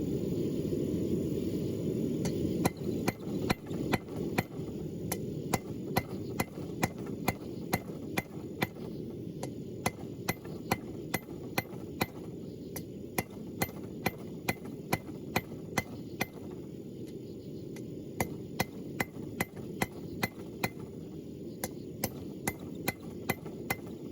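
Hammer striking hot rebar on an anvil, drawing the bar out thin for an S hook, in a steady run of blows at about two a second starting a couple of seconds in. A steady low rumble runs underneath.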